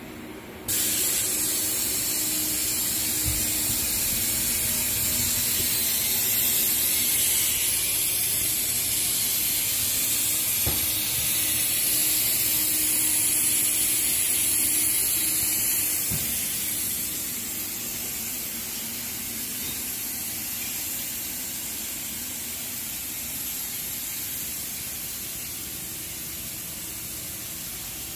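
A steady, high-pitched hiss that comes on suddenly about a second in and slowly fades over the second half.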